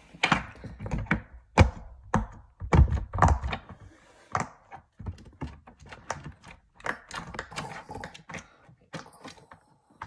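Silicone pop-it fidget toy being pressed, a quick irregular run of dull pops and clicks as its bubbles are pushed through, heaviest in the first few seconds and lighter after.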